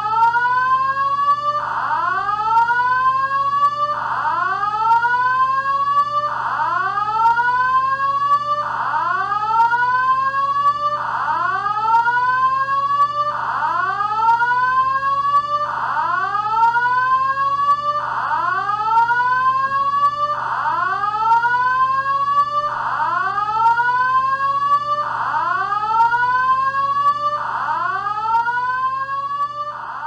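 Synthesized sci-fi fire alarm: a rising whoop tone repeating about every two and a half seconds over a steady low hum.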